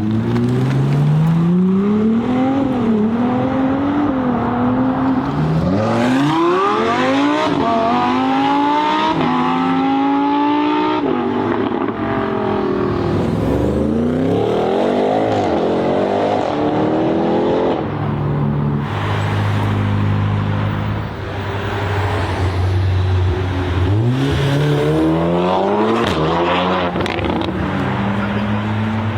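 High-performance car engines revving and accelerating hard, their pitch climbing in several runs and rising and falling as the throttle is blipped. A steady idle comes in the middle.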